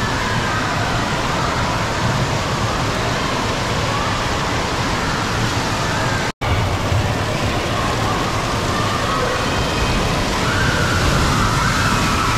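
Steady, loud rush of falling and splashing water in an indoor water park hall, with faint distant voices mixed in. The sound cuts out for an instant about six seconds in.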